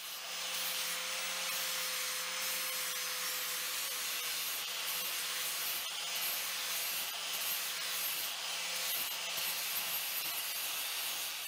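Angle grinder grinding the rough-cut edge of a 2 mm stainless steel pliers handle clamped in a vise, shaping it to its outline. The grinding noise is steady and even.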